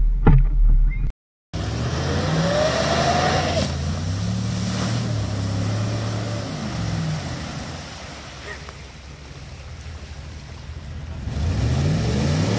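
Ford F-150 pickup's engine revving under load as it drives through a deep mud hole, the revs swinging up and down, dropping off, then climbing again near the end as its wheels throw up mud and water.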